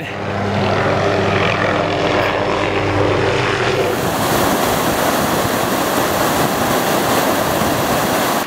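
A steady droning hum with several overtones for about the first four seconds, then the steady rush of Piute Creek flowing over its rocky bed.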